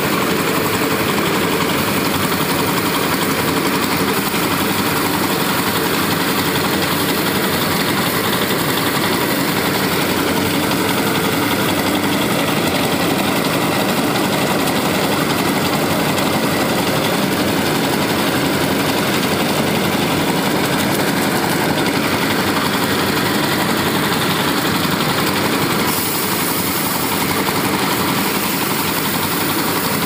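Small rice (paddy) threshing machine running steadily, its motor and spinning wire-toothed drum making a loud, continuous mechanical hum and rattle, a little quieter near the end.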